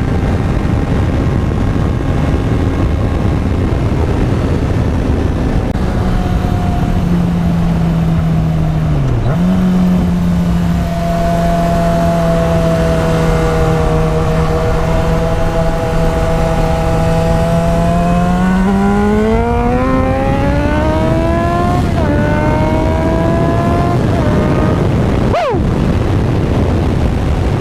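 2009 Yamaha FZ6R's inline-four engine through a Hindle exhaust, heard from the rider's seat. It holds steady cruising revs with a brief dip about nine seconds in. Then it pulls hard on full throttle with revs rising, an upshift, revs climbing again, and a sudden drop near the end. The hard pull is enough to make the front wheel float.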